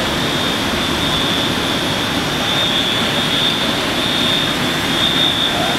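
Fire engine running parked at the scene: a loud, steady engine drone with a constant high whine over it.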